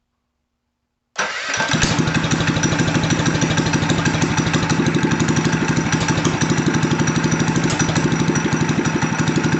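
Mini bike's small single-cylinder engine running steadily with a rapid, even exhaust beat, coming in abruptly about a second in; it breathes through a newly fitted stainless steel header.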